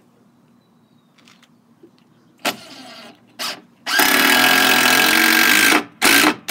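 A handheld cordless power tool's motor is triggered twice in short bursts, then held on steadily for about two seconds, then triggered again near the end.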